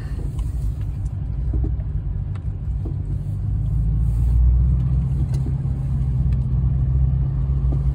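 Low engine and road rumble of a vehicle driving slowly, heard from inside the cab. The engine hum steadies and grows a little louder about halfway through.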